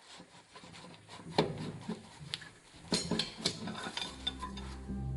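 Scattered light metallic clinks and taps of engine parts being handled on a workbench. Steady background music starts near the end.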